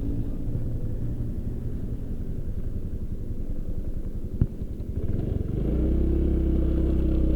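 Motorcycle engine idling, with a single sharp click about four seconds in; near the end the engine speeds up a little and holds a steady, higher note.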